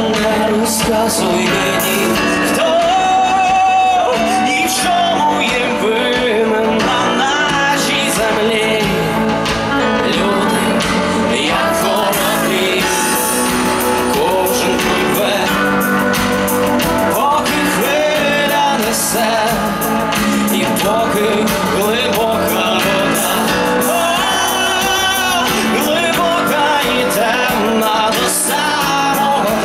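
Live pop-rock band performing: a male lead vocal sung into a microphone over drums, bass guitar and keyboards, continuous and steady in loudness.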